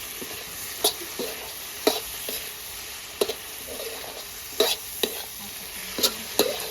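A spoon stirring eggplant and spices in a hot pot over steady frying sizzle, with sharp scrapes and knocks of the spoon against the pot at irregular intervals of about a second.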